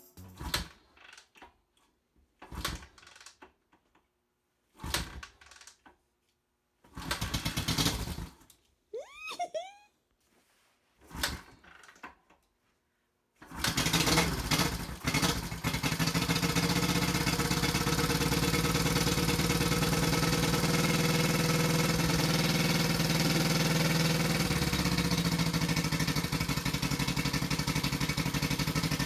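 1973 Honda CB350G parallel-twin engine being kicked over in a series of short bursts, then catching about thirteen seconds in and running steadily: its first start after a rebuild.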